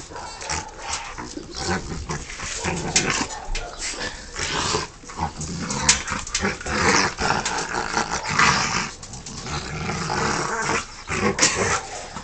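Rottweiler growling in rough play as it mouths and wrestles a man's hands, in uneven rough bursts.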